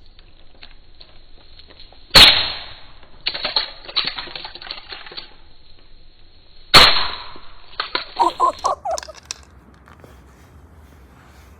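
A coffee maker being smashed: two loud sharp impacts about four and a half seconds apart, each followed by clattering of broken pieces.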